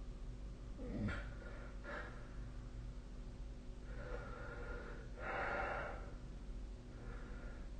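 A sleeping person snoring and breathing noisily: a snorting breath about a second in, a short one near two seconds, then two breaths around four and five seconds, the second the loudest and longest, and a faint one near the end.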